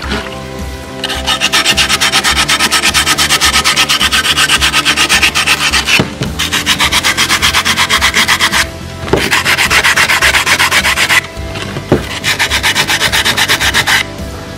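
Coarse sandpaper rubbed by hand over a wet red brick, fast back-and-forth strokes in runs broken by short pauses a few times, smoothing the brick and rounding its relief.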